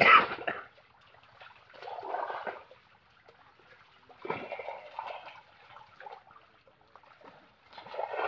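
Water splashing and sloshing as live carp thrash in a crowded seine net and are scooped out with a plastic basin, in three short bursts about two seconds apart, the first the loudest.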